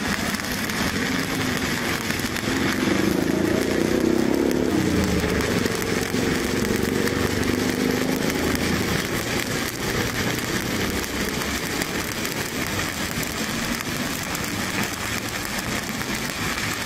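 Stick-welding arc of a 7018 electrode, running steadily and unbroken while a bead is laid on a vertical (3G) test plate.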